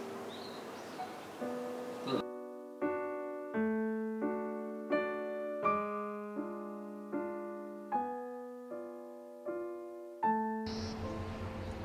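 Piano music: slow, evenly paced chords, a new one struck about every three-quarters of a second and left to ring and fade. A faint background hiss of ambience comes in under it near the end.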